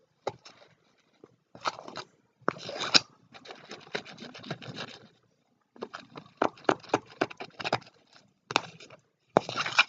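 Stirring a glue and Almat gel slime mixture in a bowl: irregular scraping and clicking of the utensil against the bowl, in short bursts.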